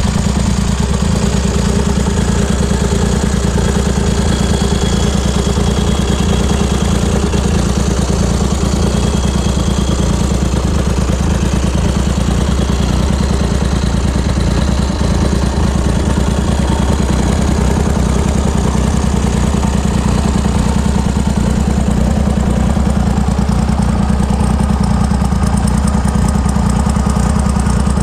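1971 BSA Rocket III Mk2's 740 cc three-cylinder engine idling steadily.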